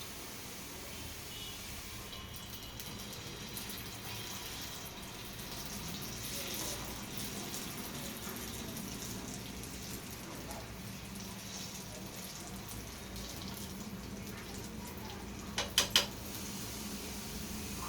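Potato pancake batter sizzling in an oiled frying pan. The sizzle picks up about two seconds in, and three sharp knocks come in quick succession near the end.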